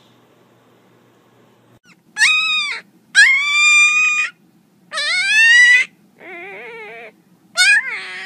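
Puppy howling: five high-pitched, drawn-out cries starting about two seconds in, each up to about a second long, the fourth one quieter and lower.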